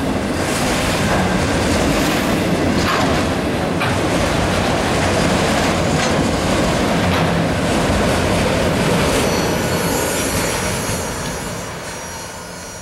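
Freight train's autorack cars rolling past, a steady loud rumble of steel wheels on rail with a few clicks. About ten seconds in the end of the train goes by and the sound fades away.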